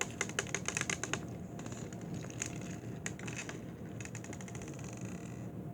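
Slime with beads mixed into it being squeezed and kneaded by hand, giving a run of crackles and small pops, thickest in the first second and again near the end.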